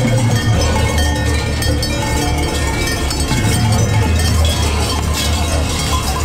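Many large cowbells worn on Krampus costumes clanging continuously as the costumed runners walk past, with a low hum underneath.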